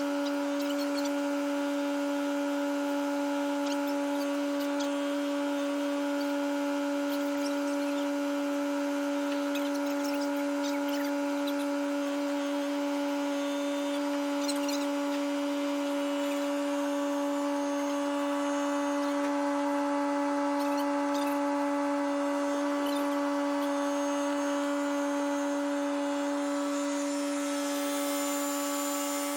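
A steady mechanical whine holding one constant pitch, from a motor-driven machine.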